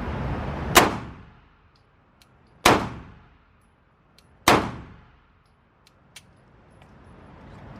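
Three gunshots about two seconds apart, each sharp crack ringing off the walls of an indoor firing range, with faint clicks between them.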